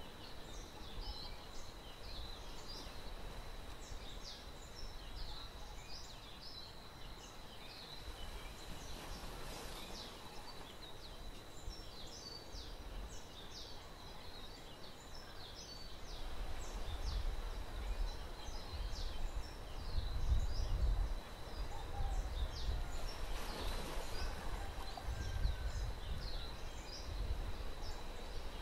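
Small birds chirping again and again over a steady high-pitched tone. A low rumble grows louder in the second half.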